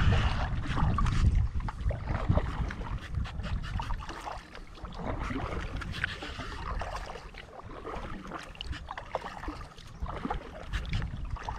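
Water splashing and dripping around a kayak as it is paddled, in small irregular splashes. Wind rumbles on the microphone, loudest in the first second or so and then easing.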